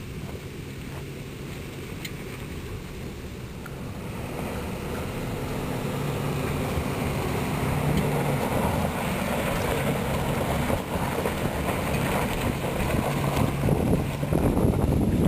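Engines of a Toyota pickup and a following compact SUV pulling up a hill of loose rock, with tyres crunching and scrabbling over the stones. The sound grows steadily louder as the two vehicles come close, loudest near the end as the SUV's wheels churn the gravel right by the microphone, with some wind on the microphone.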